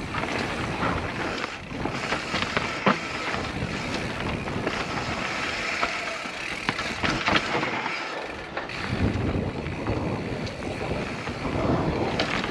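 Specialized Enduro 29er full-suspension mountain bike descending a dirt and rock singletrack at speed: steady tyre rumble and frame rattle, broken by sharp knocks and clatters as it hits roots and rock, with wind buffeting the helmet-mounted microphone.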